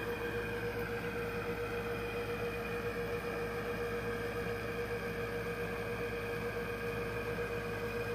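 Aquarium equipment humming steadily: a constant tone over an even bed of noise.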